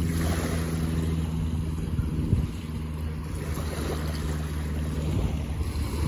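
Small waves washing onto a sandy beach, under the steady hum of an engine that fades out about five seconds in.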